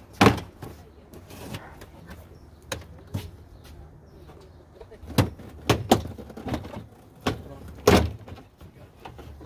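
Plastic hatch-area trim panels of a Nissan 370Z being pulled and worked free: a string of sharp clicks and knocks as retaining clips pop out and panels bang against the body, busiest in the second half.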